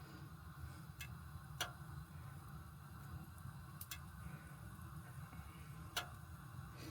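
A few faint, irregular pops and ticks from oil heating in a frying pan around a single breadcrumbed piece of chicken-of-the-woods fungus; the oil is not yet hot enough for a full sizzle. A low steady hum runs underneath.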